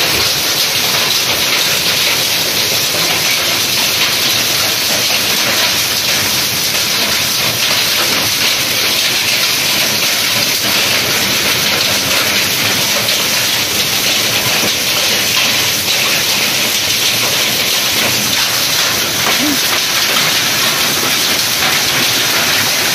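Heavy rain mixed with hail pelting down onto a concrete yard: a loud, steady hiss that does not let up.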